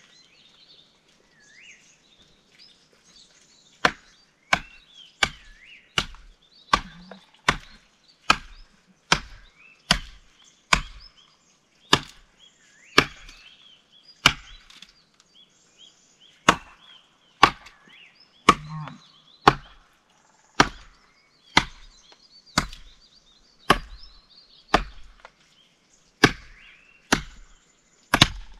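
Firewood being chopped by hand: sharp blade strikes on wood in a steady rhythm, a little over one a second, starting about four seconds in. Birds chirp faintly between the strokes.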